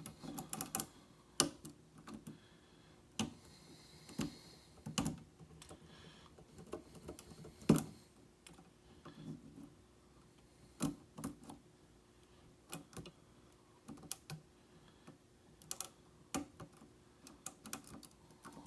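A Peterson Hook 7 pick and a tension bar working the pins of a 5-pin pin-tumbler challenge lock with a Schlage SC1 keyway: irregular small metallic clicks and taps, with one sharper click about eight seconds in.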